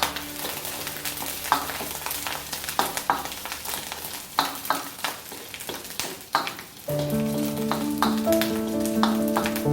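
Food sizzling in hot oil in a pan, with irregular sharp clicks and scrapes of a spatula stirring it. Background music with sustained notes returns about seven seconds in.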